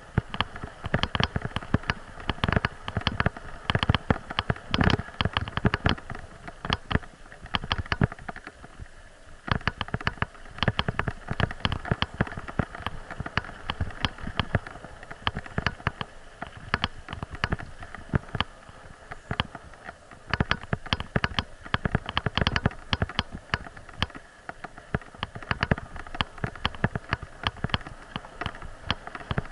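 Mountain bike rolling over a rough sandy-gravel forest track covered in dry fallen leaves: a dense, irregular crackle of clicks and knocks from the tyres on stones and leaves and the jolts of the ride, briefly thinner about a third of the way in.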